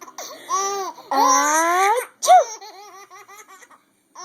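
A baby laughing in bursts of giggles. About two seconds in, a woman gives a drawn-out sneeze, rising in pitch on the 'ah' and ending in 'choo', and the baby's giggling picks up again right after it.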